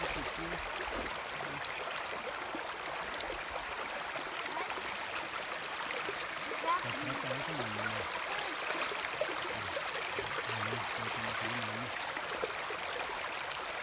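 Shallow rocky river running: a steady rush of water flowing over stones.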